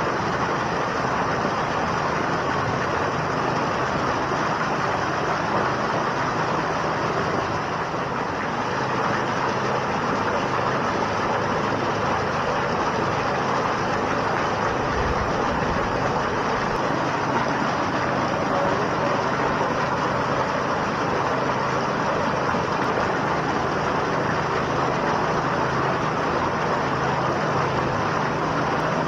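A strong jet of water from a water truck's fire hose pouring and splashing steadily into a partly filled above-ground pool, with a steady engine hum beneath it.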